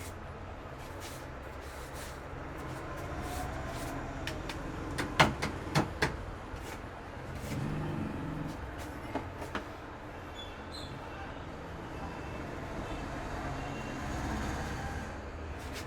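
Sharp slaps and claps of a barber's hands in a vigorous head massage: four quick cracks about five seconds in, then two fainter ones a few seconds later, over a steady low background rumble.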